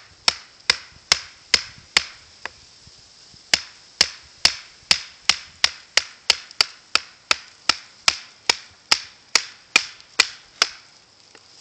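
Wooden baton tapping the spine of a Habilis Bushtool knife, driving its 1055 carbon steel blade down through a stick to split it. Sharp, evenly spaced light taps, about two to three a second, with a short pause around two and a half seconds in, then stopping near the end.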